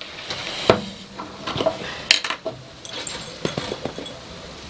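Glass jar and its lid being handled: a series of light clinks and knocks, several spread through a few seconds.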